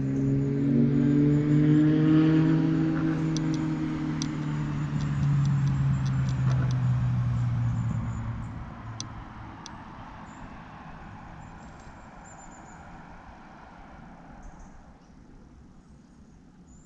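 Engine of a passing motor vehicle, a low hum that slowly drops in pitch and fades away over about ten seconds. A few faint, light ticks come through in the middle.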